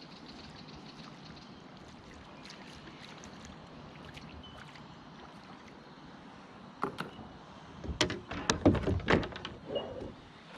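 Faint, steady river-bank ambience, then from about two-thirds of the way in a run of loud, sharp knocks and splashes: a kayak paddle dipping and stroking, knocking against the plastic hull.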